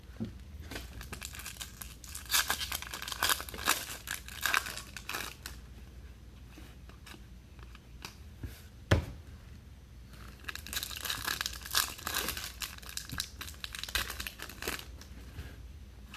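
Foil trading-card pack wrappers being torn open and crinkled, in two stretches of crackly rustling, with a single sharp knock in between.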